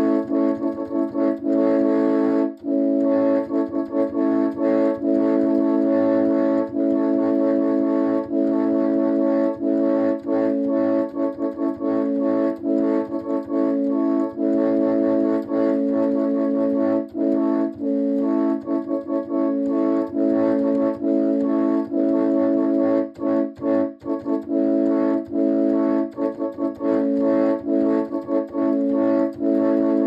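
Nathan Airchime P01245 five-chime train air horn sounding its chord. The horn is held almost continuously, with many short breaks.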